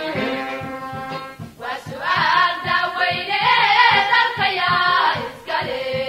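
Background music with a steady drum beat; a higher, wavering melody comes in about two seconds in and drops away near the end.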